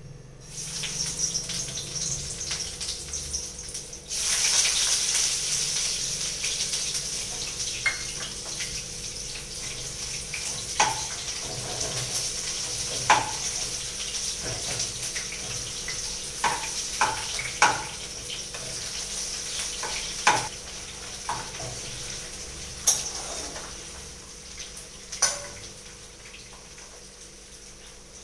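Sliced onions frying in hot vegetable oil in a kadai: a steady sizzle that gets louder about four seconds in and eases off near the end. A spatula clicks against the pan now and then as the onions are stirred.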